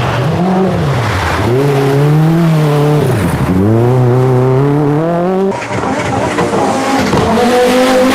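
Group B rally car engine at full throttle, its revs climbing and then dropping sharply several times as it shifts up through the gears. About five and a half seconds in the sound changes abruptly to another steadier engine note.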